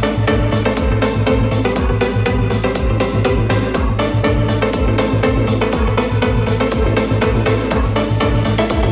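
House music from a DJ mix with a steady, even beat.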